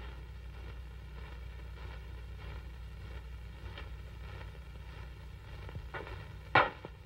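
Boot footsteps of several men shuffling into a line, faint at first, with a sharp louder step about six and a half seconds in. Underneath is the steady low hum and hiss of an old optical film soundtrack.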